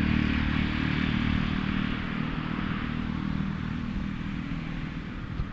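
A motor vehicle's engine running close by, a steady low hum with road noise that slowly fades.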